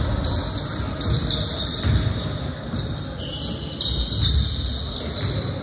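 Basketball bouncing on a gym floor during a game: uneven low thumps of the ball, with voices in the background.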